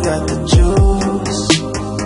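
Electronic music with a steady beat: crisp ticking hi-hats over sustained synth notes, with deep bass hits that drop sharply in pitch.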